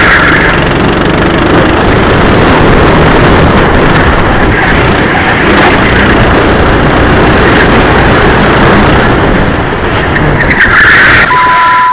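Onboard sound of a SODI RT8 racing kart's engine running hard, loud and steady, with tyres squealing through corners at the start and again about ten and a half seconds in. A steady high beep starts just before the end.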